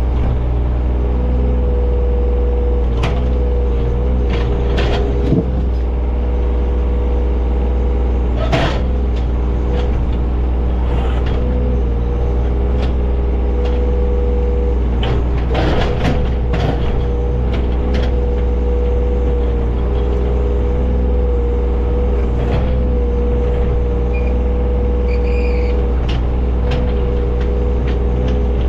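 John Deere 35G mini excavator's diesel engine running steadily under work, with a steady whine over the low engine hum. Scattered short knocks and clanks come through at intervals, the loudest about three seconds, eight and a half seconds and sixteen seconds in.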